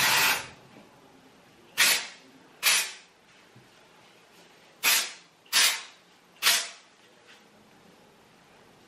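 Aerosol dry shampoo sprayed into the hair roots in six short hissing spritzes, a second or so apart.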